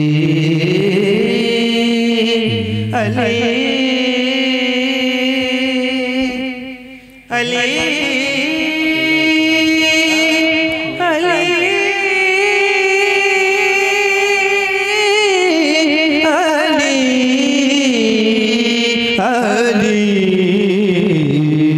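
A man singing a manqabat (Urdu devotional verse in praise of Ali), drawing out long wavering notes that climb to a high held note and then sink again, with a brief break for breath about seven seconds in.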